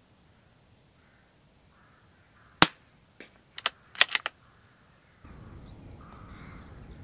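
A moderated CZ 457 Royal .22 LR bolt-action rifle fires one shot, a sharp crack about two and a half seconds in. Several quieter metallic clicks follow over the next second and a half. Crows caw faintly before the shot.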